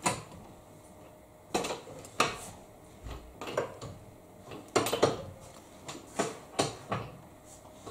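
Irregular clinks and knocks of hard objects being handled, about ten separate strikes, the loudest around two seconds and five seconds in.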